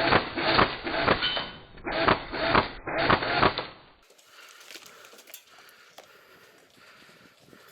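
Airsoft guns firing loud rapid bursts of shots, which stop about four seconds in; after that come faint scattered clicks and rustling.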